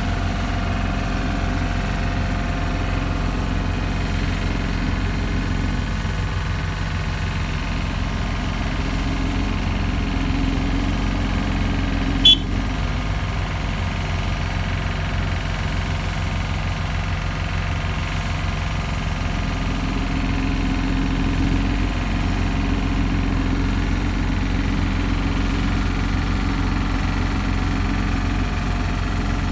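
Heavy engine running steadily as a crane hoists a hydraulic clamshell dredging grab out of the water. One sharp metallic click comes about twelve seconds in.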